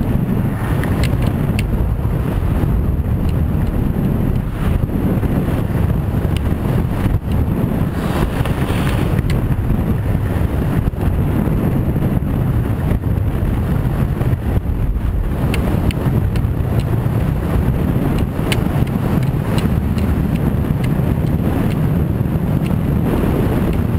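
Wind buffeting the microphone of an action camera on a skier going downhill: a loud, steady low rumble, with skis scraping over the snow and scattered light clicks.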